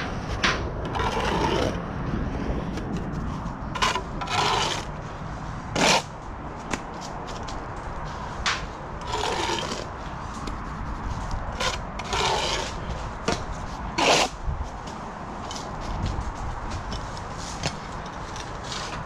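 Steel bricklaying trowel scraping mortar against perforated clay bricks in short strokes every couple of seconds, with two sharp knocks, one about six seconds in and one near fourteen seconds, over a low steady rumble.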